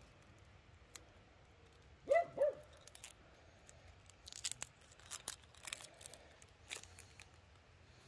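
A small dog yips twice in quick succession about two seconds in. Then comes a scatter of light clicks and crinkles from hands working the graft.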